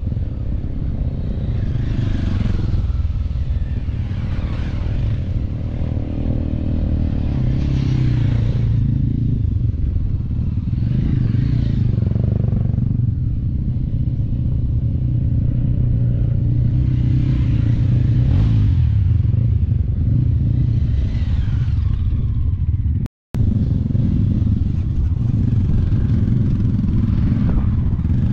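Motorcycle engine running steadily at low trail speed, heard from on the bike, with a hissing rush that swells and fades every few seconds. The sound drops out for a moment about two-thirds of the way through.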